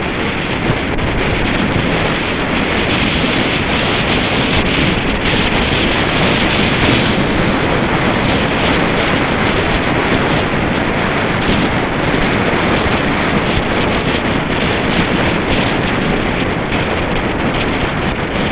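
Wind blowing over the microphone of a camera on a moving road bicycle: a loud, steady rush of noise.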